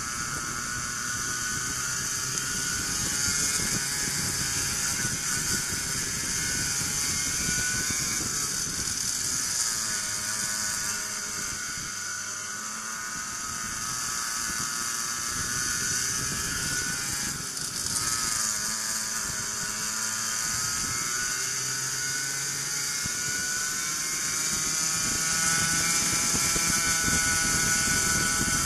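Racing kart engine at full race pace, its pitch dropping into the corners and climbing again out of them, several times over, with a steady high hiss over it.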